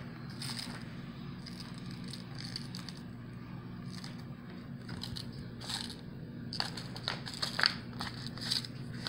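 A paper frosting pouch crinkling as it is squeezed and worked by hand, the crinkles coming thicker and louder in the second half. A steady low hum runs underneath.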